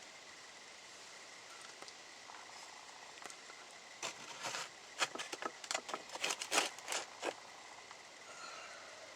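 Damp wood ash in a kiln firebox being dug out with a hand tool. A run of short scrapes and crunches starts about four seconds in and stops at about seven and a half seconds; before that there is only faint background hiss.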